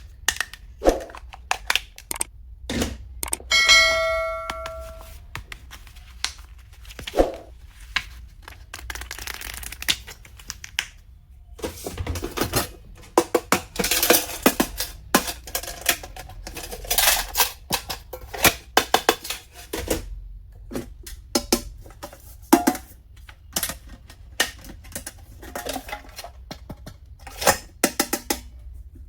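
Stationery and its packaging being handled: a run of small clicks, taps and rustling of plastic and packaging, with a brief bell-like metallic ring about four seconds in.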